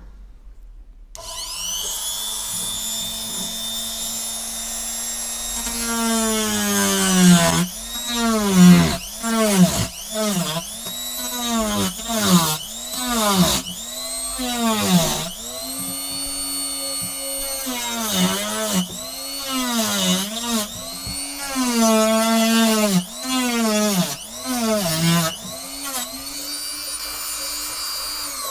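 Dexter rotary tool with a thin cutting disc, run at a modest speed, spinning up about a second in with a steady whine. From about six seconds in it cuts through the plastic housing of a coffee-machine water filter, and the whine dips and recovers over and over, roughly once a second, as the disc bogs under load.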